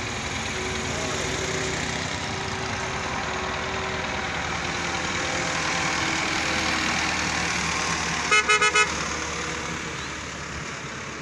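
Road vehicle passing, its engine and road noise swelling and then fading away, with four quick horn toots about eight seconds in.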